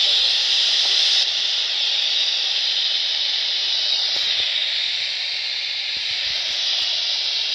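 Steady static hiss from a handheld radio's speaker, with the squelch open and no voice coming through.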